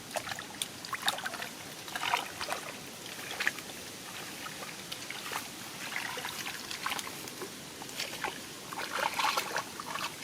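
Shallow water in a flooded rice field splashing and sloshing in short, irregular splashes, as hands feel through it for fish.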